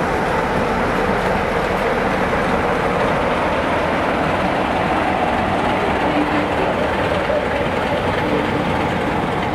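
A passenger train runs past close by: Mk1 coaches rolling over the rails with a steady rumble. About four seconds in, the Class 47 diesel locomotive on the rear passes and moves away.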